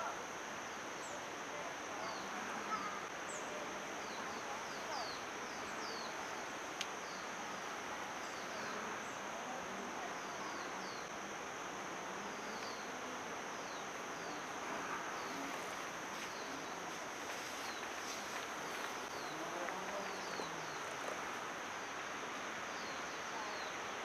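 Outdoor ambience: a steady, high-pitched insect drone with frequent short, falling bird chirps over it, above a low wash of background noise.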